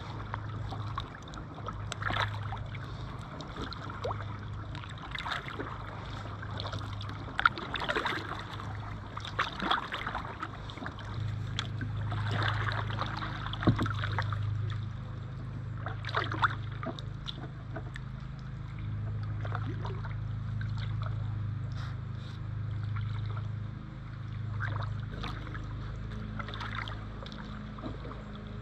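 Kayak paddle blades dipping into calm river water in irregular strokes every second or two, with drips and small splashes, over a steady low hum.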